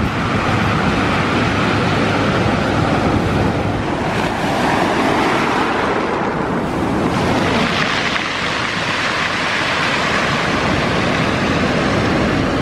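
Ocean surf breaking and washing up the shore: a steady rush of water that eases briefly midway, then builds again.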